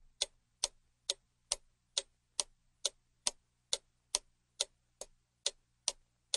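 Clock ticking steadily, sharp even ticks a little over two a second.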